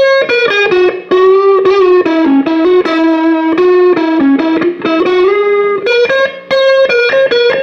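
Electric guitar played through a Behringer GMX212 modeling combo amp: a single-note lead line with long held notes that step up and down in pitch, with a light distorted edge.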